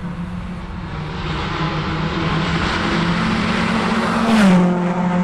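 Rally car approaching at speed under full throttle, its engine growing steadily louder, then passing close by about four seconds in, the engine note dropping as it goes past.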